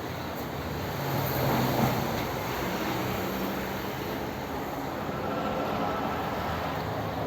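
Electric sunroof motor and slide mechanism of a Fiat Marea running, a steady mechanical hum with a low whir that shifts slightly in pitch.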